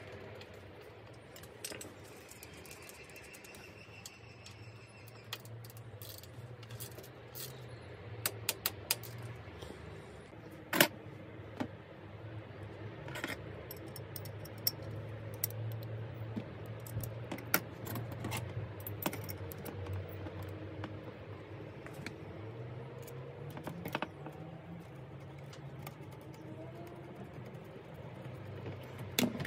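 Small metal parts clicking and clinking: chainrings, chainring bolts and a hex key handled and fitted to a bicycle crankset on a workbench. The clicks come irregularly, with a sharp clink about 11 seconds in, over a faint low hum.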